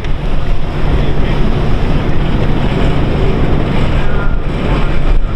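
Wind buffeting the microphone in a loud, uneven rumble, over a steady low hum.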